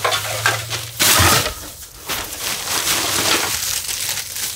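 A shovel scraping up debris and tipping it into a plastic trash bag, with the bag rustling. A loud scrape comes about a second in.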